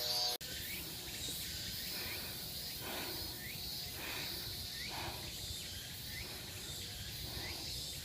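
Background music cuts off just under half a second in, giving way to a steady high-pitched insect chorus, with short rising chirps repeating every half second or so.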